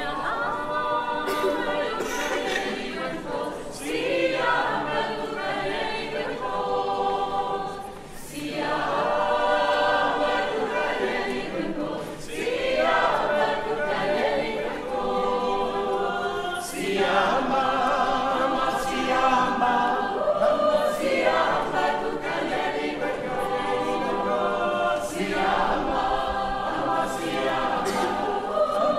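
Mixed choir of men's and women's voices singing a cappella. The song moves in phrases of about four seconds, with short breaks between them.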